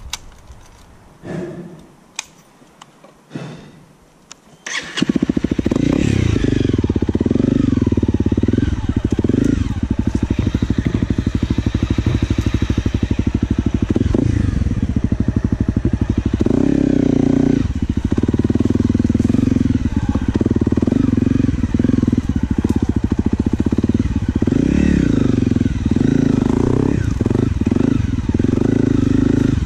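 Honda CRF250L dirt bike's single-cylinder four-stroke engine firing up about five seconds in, after a few quiet seconds with some light knocks. It then runs continuously, revving up and down as the bike is ridden along a dirt trail.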